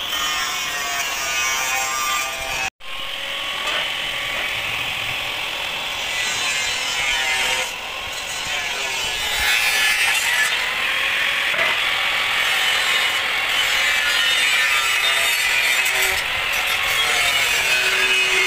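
Stick arc welding on sheet steel: the electrode's arc crackling and hissing steadily, with a momentary break about three seconds in.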